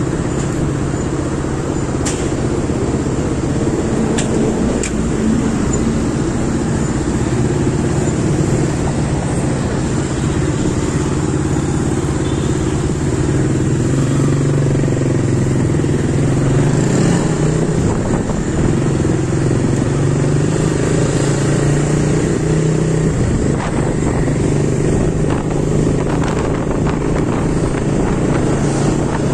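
Small motorcycle engine running while riding, its note rising and falling as the bike speeds up and eases off, with other traffic around it.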